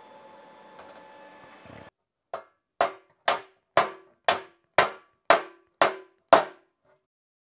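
Steady hiss and hum of a TIG welding arc on a Porsche 911 steel fuel tank, stopping abruptly about two seconds in. Then a small hammer strikes the tank nine times, about twice a second, each strike a sharp metallic ring.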